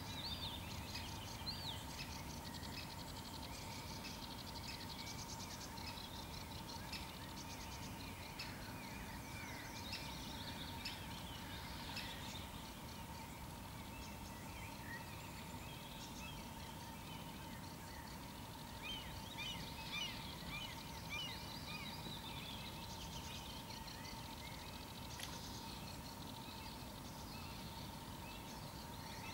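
Early-morning songbird chorus: many overlapping chirps, whistles and rapid trills from several birds, busiest around 8–12 s and again around 19–22 s. Beneath it a steady low rumble and a faint steady hum-like tone.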